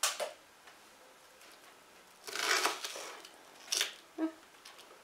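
Kitchen knife cutting a raw onion on a wooden cutting board. There is a sharp knock at the start, a longer crunching cut about two and a half seconds in, and two short knocks of the blade near the end.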